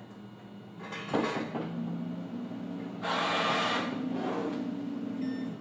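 The hinged front door of a breathalyzer vending machine is swung shut, with a sharp knock about a second in. A steady low hum follows, with a louder burst of rushing noise about three seconds in, and the hum cuts off suddenly near the end.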